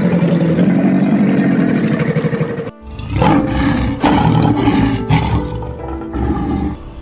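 A crocodile's long, low growl that cuts off sharply, then a lion's growling roars, several short ones in a row.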